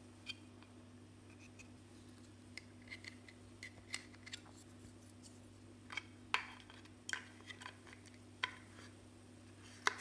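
Irregular small clicks and taps of a drone's GPS antenna module and plastic shell being handled and fitted together, a few sharper clicks among them, over a steady low hum.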